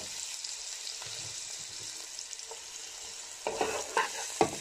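Chopped onion sizzling steadily in hot oil in a kadhai. About three and a half seconds in, a wooden spatula starts stirring it, scraping and knocking against the pan in quick strokes.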